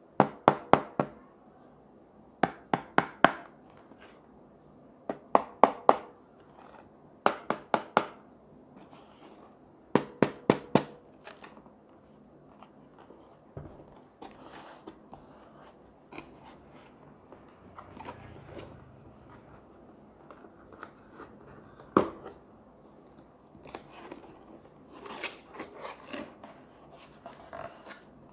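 Hands handling a cardboard product box. In the first eleven seconds there are five quick bursts, each of four or five sharp taps or knocks. After that come quieter cardboard rustling and scraping, one sharp click, and a few more small taps as the box's lid flaps are opened.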